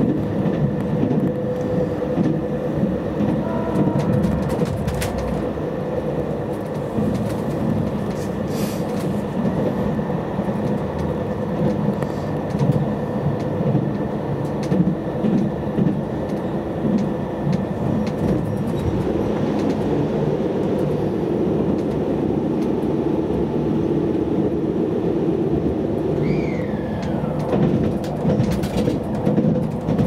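Inside the cabin of a JR Hokkaido 789-series electric express train running at speed: a steady rumble of wheels on rail with a constant hum. Near the end a brief tone falls in pitch, and a few sharp clicks follow.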